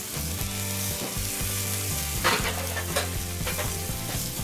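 Bratwursts sizzling on the grate of a charcoal kettle grill over direct embers, with a couple of short clicks as metal tongs handle them, about two seconds in and near the end.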